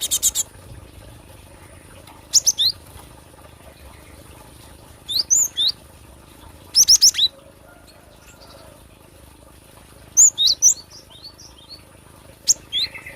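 Cinereous tit (gelatik batu) calling: six short phrases of rapid high chirping notes, a few seconds apart.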